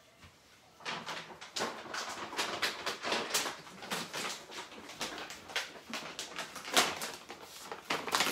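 Handling of a plastic packaging bag: irregular rustling and crinkling with small clicks and knocks, starting about a second in.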